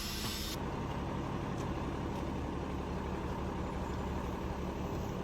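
Steady low rumble of a motor vehicle running, with a faint constant hum underneath.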